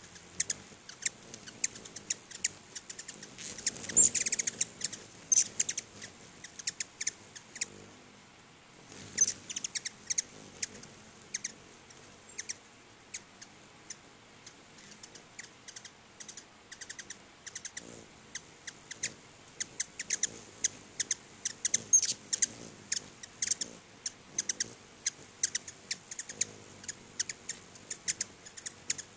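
Ruby-throated hummingbirds chipping: a busy, irregular stream of short, sharp, high chip notes from many birds at once, thickening into a louder flurry about four seconds in.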